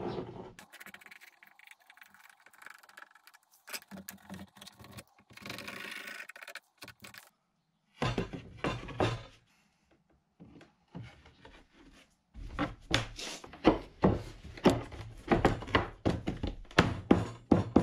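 Old wooden floorboards being laid and shifted onto a wooden door frame, with scrapes and thuds, then a quick run of sharp wooden knocks, about two or three a second, over the last five seconds.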